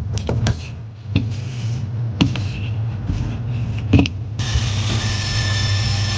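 Scattered sharp clicks and taps of small parts being handled, over a steady low hum. About four seconds in, a steady hiss with a faint high whine comes in.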